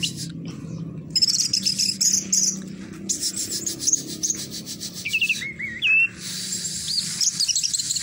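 Orange-headed thrush (anis merah) singing the song style that hobbyists call "teler doyong": bursts of rapid, high-pitched trilling and twittering, with a few sliding whistled notes about two-thirds of the way through. A steady low hum runs underneath.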